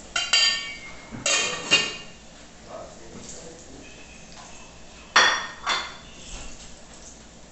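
Cookware clinking: a steel pot lid and a fork knocking against pans and a plate in a few sharp, ringing clinks, the loudest about five seconds in.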